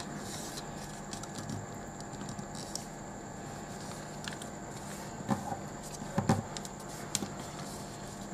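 A4 paper being folded and creased by hand on a tabletop: soft rustles and light taps of fingers pressing the folds, the loudest knocks about two-thirds of the way through, over a steady background hiss.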